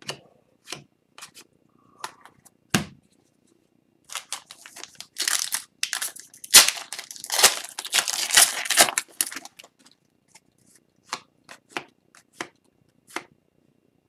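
Upper Deck Series 2 hockey card pack wrapper being torn open and crinkled, a dense crackling run for several seconds in the middle. Before and after come light clicks and slaps of trading cards being handled.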